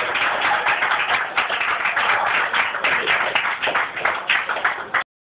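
Audience applauding: dense, steady clapping from a crowd that cuts off suddenly about five seconds in.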